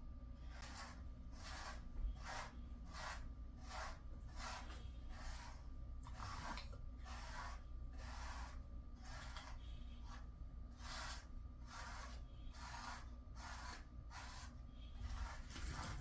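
Grooming brush raking through a Jindo dog's thick coat in regular scratchy strokes, about two a second.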